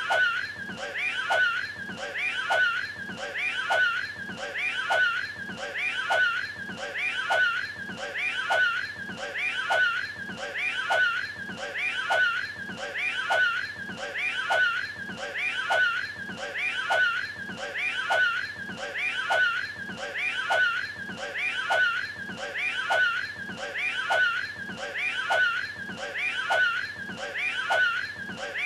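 Retching and hacking of a cat bringing up a hairball, voiced by an actor, as one short snippet looped over and over, about three repeats every two seconds.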